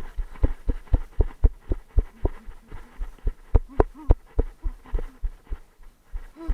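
Footsteps of a person running: a steady run of heavy thuds, about four a second.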